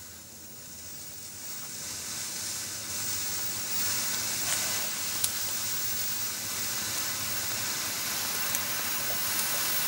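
Heap of ammonium dichromate burning after ignition: a hiss that swells over the first few seconds and then holds, with a few sharp crackles.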